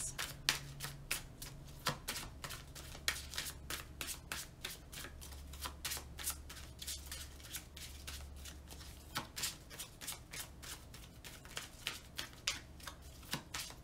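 Tarot deck being shuffled overhand in the hands: a run of quick card slaps and riffles, about three or four a second.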